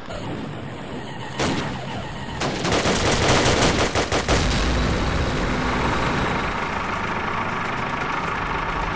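Battle sound effects: rapid rifle and machine-gun fire, heaviest from about two and a half to four and a half seconds in, with a vehicle engine running underneath.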